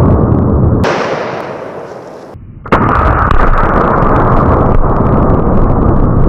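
Rifle fire and a binary exploding target detonating, so loud that the microphone overloads into continuous noise. The noise fades away about a second in, then cuts back in suddenly just under three seconds in.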